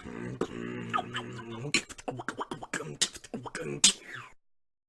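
Beatboxer's vocal percussion: sharp mouth clicks and hits, with a hummed low note held under them for about the first second, then more irregular strokes that stop about half a second before the end.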